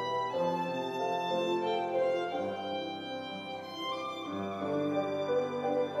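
Violin bowed in a slow melody of long held notes, over lower sustained notes beneath it.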